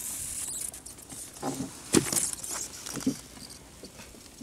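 Handling of a freshly caught fish in a small fishing boat: a few short, irregular knocks and scuffs, the sharpest about two seconds in.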